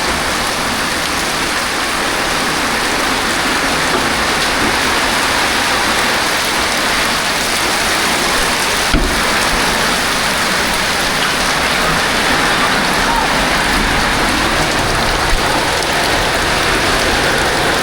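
Heavy rain falling steadily, an even hiss of rain on surfaces, with a single sharp knock about halfway through.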